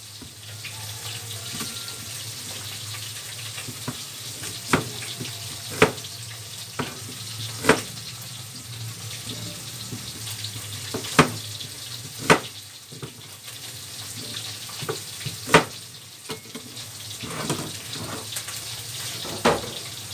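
Kitchen knife cutting an onion into quarters on a plastic cutting board: about seven sharp knocks, irregularly spaced, as the blade hits the board. A steady hiss runs underneath.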